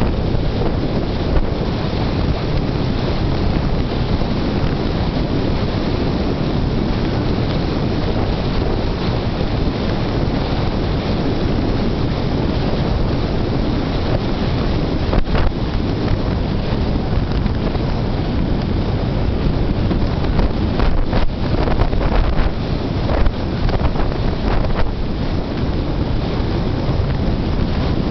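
Steady wind rush buffeting the microphone of a camera held out the open window of a car moving at about 45 mph, with the car's road noise underneath. A few brief knocks in the second half.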